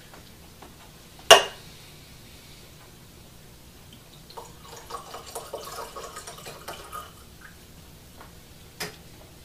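Liquor glugging and trickling from a miniature glass bottle into a wine glass for a few seconds in the middle. A single sharp knock about a second in and a lighter knock near the end.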